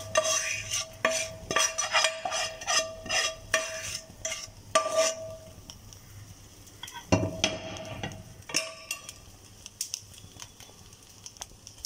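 Steel spoon stirring cooked rice in a stainless steel pot, mixing in roasted garlic and chilli powder, with soft scrapes and clicks of metal on metal. The clicking is busiest in the first few seconds and again around seven to nine seconds in, quieter in between.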